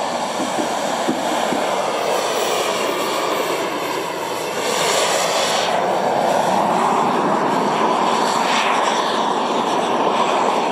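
Jet turbine engine of a radio-controlled F-2A model jet running at high power in flight, a steady rush with a whine that shifts in pitch as the jet manoeuvres. It gets louder about five seconds in.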